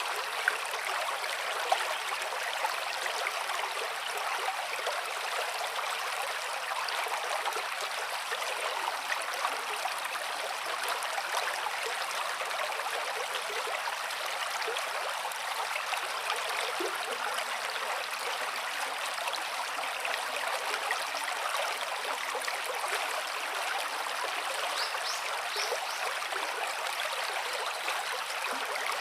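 Steady rush of a small river's running water, an even hiss with no change, and a few light ticks in the first two seconds.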